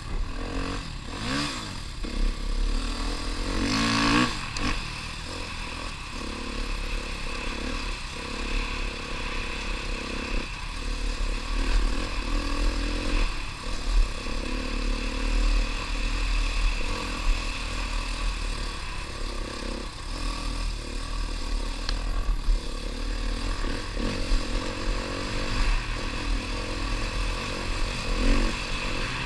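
Husqvarna trail bike engine running under throttle while being ridden, its revs rising and falling several times, most sharply in the first few seconds. A steady low rumble lies underneath.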